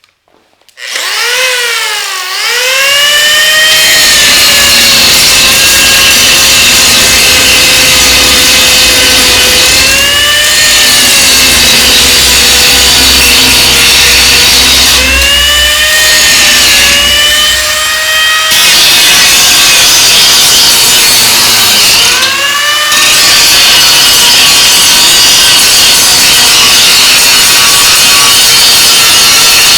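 Handheld side (angle) grinder. Its motor spins up from rest to a steady high whine over a harsh grinding hiss. The pitch sags and recovers several times as the disc is loaded.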